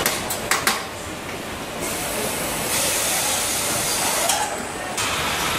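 Automated wheel-and-tyre assembly machinery running: a few sharp mechanical clicks near the start, then a steady hiss for about two seconds past the middle, with another click partway through it.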